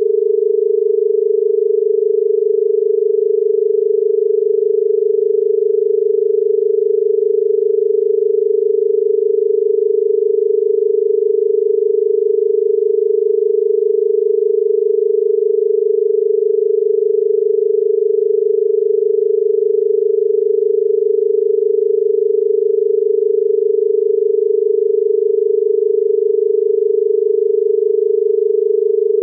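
Australian telephone dial tone: 400, 425 and 450 Hz tones sounding together, held steady without a break. It is the exchange's signal that it is ready for the caller to dial.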